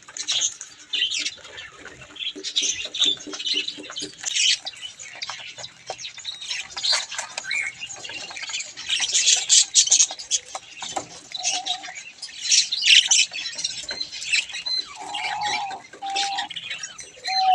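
A flock of budgerigars chattering, with many short, high chirps overlapping without pause. A few held mid-pitched tones come in near the end.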